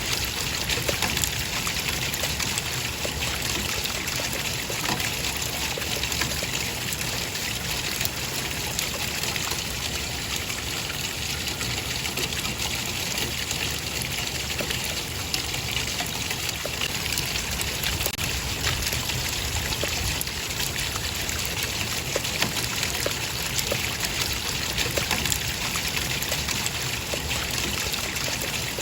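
Running water trickling steadily, an even rushing wash with tiny scattered drips and splashes in it.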